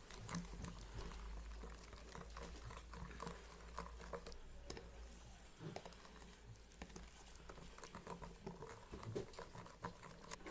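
Faint patter and light taps of fine semolina being added to the egg, sugar, oil and water batter in a mixing bowl, over a faint low hum that stops about seven seconds in.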